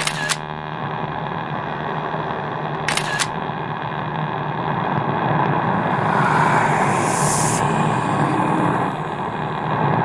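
Outro sound design: two sharp double clicks about three seconds apart over a low, dense drone that slowly swells louder, with a burst of hiss about six to seven seconds in.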